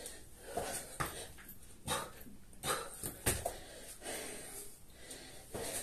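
A man breathing hard in short, heavy gasps, roughly one a second, winded from burpees and kettlebell swings.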